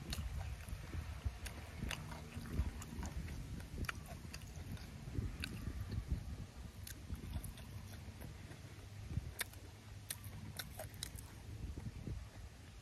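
A man chewing boiled meat close to the microphone, with scattered wet mouth clicks and lip smacks over a steady low rumble.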